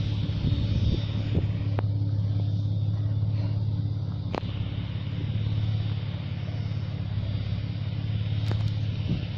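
Nissan Patrol's RD28 straight-six diesel with compound turbos running steadily, a deep even drone under a thin high turbo whistle that fades in the first second or two and comes back faintly near the end. A few light clicks.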